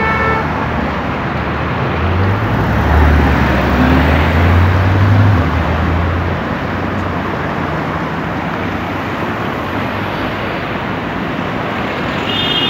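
City road traffic noise, with a low engine rumble swelling from about two seconds in and fading after about four seconds, and a brief car horn near the end.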